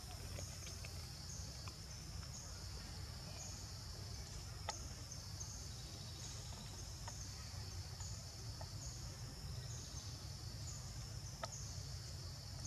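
Steady outdoor insect chorus, a high buzzing that pulses in a regular rhythm, over a low rumble. A few faint clicks sound now and then.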